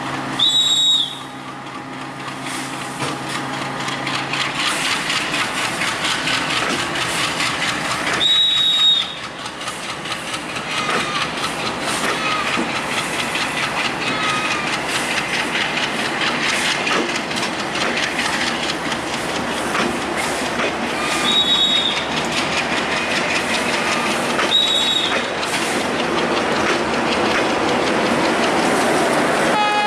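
Bangladesh Railway intercity passenger coaches (Indonesian-built PT Inka rake) rolling past at speed: a steady rush of wheels on rails with rapid clickety-clack over the rail joints, slowly getting louder. Brief high squeals cut through four times, and a low steady hum dies away about four seconds in.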